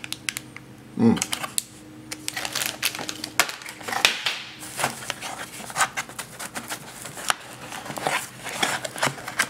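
Unpacking noises as a hand works in a small cardboard box: a plastic parts bag, a paper-wrapped dome camera and the box flaps rustling, with many irregular clicks and taps. A short hum from a voice comes about a second in.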